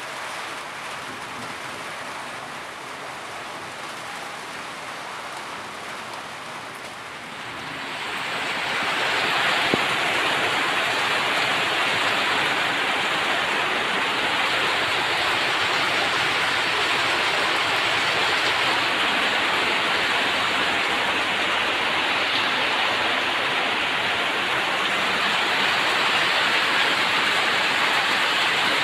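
Heavy rain falling steadily. It becomes clearly louder about eight seconds in and then stays level.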